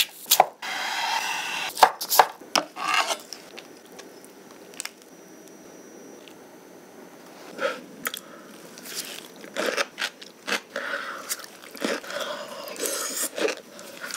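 A kitchen knife slices through a sushi roll wrapped in plastic film, with crinkling and sharp taps of the blade on a wooden cutting board. After a quieter stretch come scattered clicks and soft crunchy handling sounds.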